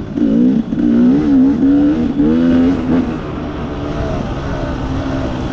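A vehicle engine running under changing throttle. Its pitch rises and falls repeatedly in the first half, then holds steadier toward the end.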